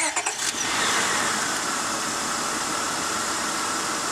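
1999 Honda Odyssey's V6 engine cranking briefly and starting, then running steadily, with a whine that falls in pitch over the first couple of seconds as the revs settle. One cylinder has a known-bad ignition coil pack fitted, the cause of the van's random misfire.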